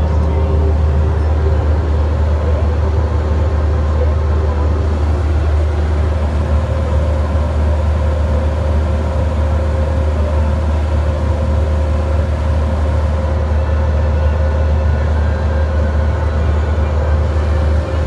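Bobcat mini excavator's diesel engine running steadily, heard from inside the cab, with a deep constant hum.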